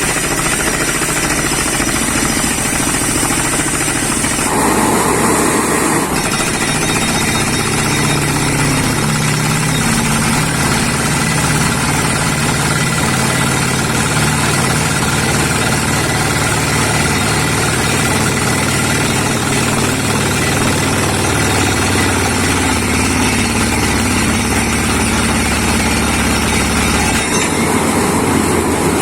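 Borewell drilling rig at work: the air-driven down-the-hole hammer rattles steadily over the drone of the rig's engine and air compressor. The engine note shifts a few times.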